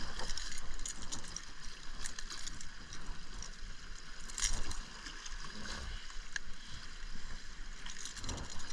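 Water washing and lapping against jetty rocks, with scattered small clicks and taps from the fish and the topwater lure's hooks being handled; one sharper click about four and a half seconds in.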